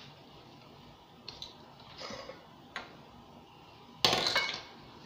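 Kitchen utensils and dishes handled out of sight: a few faint clicks and knocks, then a short louder clatter about four seconds in.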